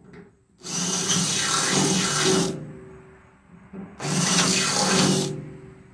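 Cordless drill spinning a twist bit through a thin aluminum column wall, in two runs of a second or two each with a pause between, the motor winding down after each run.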